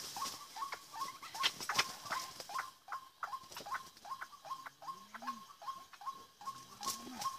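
White-breasted waterhen calling: a clipped note repeated evenly, about three times a second.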